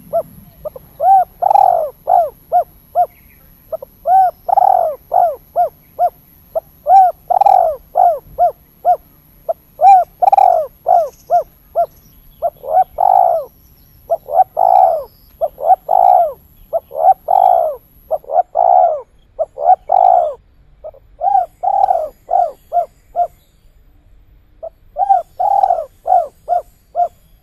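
Spotted dove (tekukur) cooing over and over, each phrase a longer rounded coo followed by quick shorter coos, in the 'kuk 3' pattern that Indonesian dove keepers name. There is a short break in the calling near the end.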